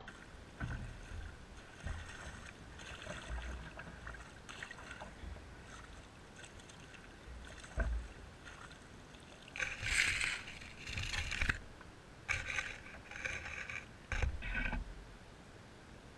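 Water sloshing around a landing net as it is worked in reservoir water from a boat, with a few dull knocks. In the second half come several loud bursts of splashing, in the course of releasing a hooked rainbow trout from the net.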